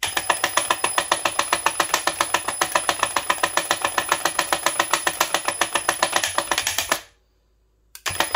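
EGO 56V PowerLoad string trimmer head spinning in its line-loading mode, winding the trimmer line onto the spool with a steady rapid clicking of about eight clicks a second. It stops abruptly about seven seconds in, once the line is loaded, and a couple of light clicks follow near the end.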